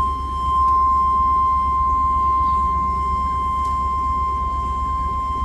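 1997 Chevrolet Suburban idling as it warms up: a steady low rumble in the cab, with a steady high-pitched tone held over it.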